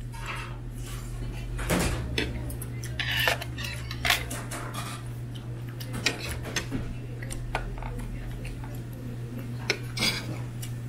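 Metal spoon scraping and clinking against a ceramic plate while scooping up rice, in several short scrapes and sharp clinks.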